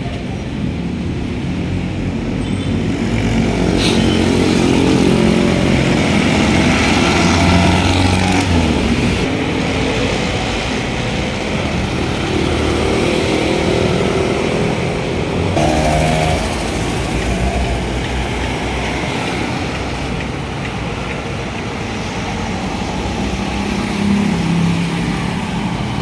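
City road traffic: cars and motorcycles running past, their engine notes rising and falling over a steady rumble of tyres and traffic.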